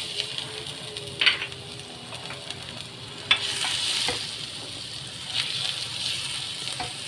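Minced garlic sizzling in hot cooking oil while being stirred with a wooden spoon. The sizzle swells about three to four seconds in, and there are two sharp knocks, about a second in and about three seconds in.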